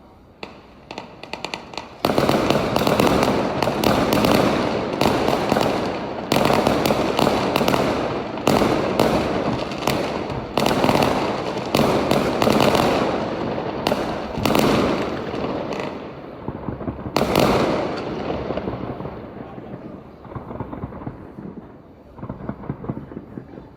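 A fireworks barrage: a dense, continuous run of bangs and crackles that thins out to scattered pops and crackles in the last few seconds.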